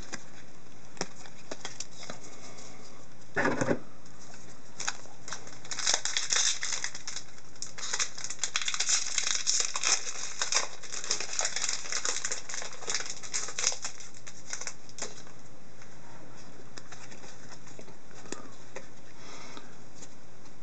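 Hockey card packs and cards being handled: dense crinkling and crackling of a pack wrapper being torn open, heaviest in the middle stretch, with cards flicked and slid against each other and a short knock about three and a half seconds in.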